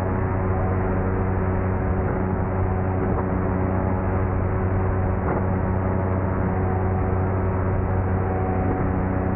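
SP140 electric paramotor's motor and propeller running steadily in powered flight: an even hum made of several steady tones, with no change in pitch or level.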